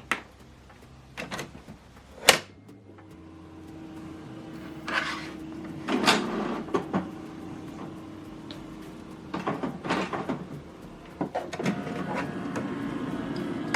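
HP DeskJet 4120e inkjet printer's mechanism running as it starts up: a few sharp clicks, then a steady motor hum with bursts of whirring and clunking from the carriage and paper drive.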